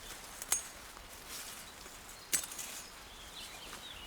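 Quiet outdoor ambience with two sharp clicks about two seconds apart, and faint high bird chirping near the end.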